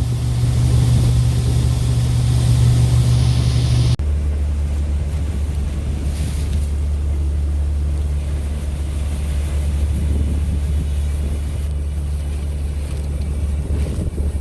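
International tractor engine running steadily, a loud low drone with a hiss over it. About four seconds in the sound changes suddenly: the hiss and the higher hum drop away, leaving a lower, even drone.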